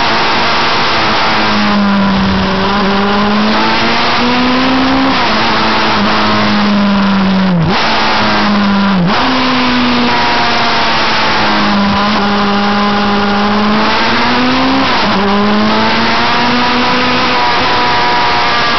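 Onboard sound of a 600 cc inline-four sport bike under way, its engine note rising and falling through the bends over a steady rush of wind on the microphone. The engine cuts off and comes back briefly twice, a little past halfway.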